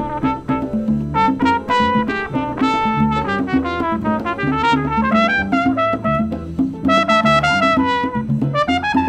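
Live Latin jazz band: a brass horn plays a lead melody of quick notes and sliding phrases, over a repeating upright bass line with keyboard and conga drums.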